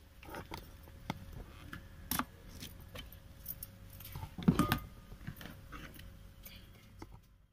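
Scattered light clicks and clinks from the lid and jar of a mixer-grinder being handled with the motor off, with a louder clatter about four and a half seconds in.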